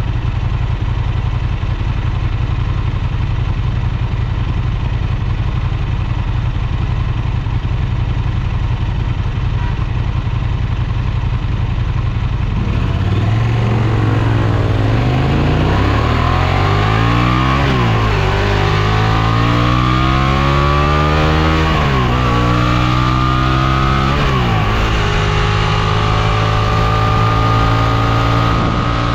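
Honda Transalp XL750's 755 cc parallel-twin engine running steadily at low revs, then about twelve seconds in the bike pulls away. The engine note rises and drops back with each of several upshifts, then holds a steady higher pitch near the end.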